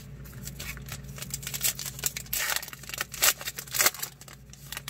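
A trading card pack's wrapper being torn open and crinkled, with the cards handled and shuffled: a string of rustles and crackles, loudest from about halfway in to near the end.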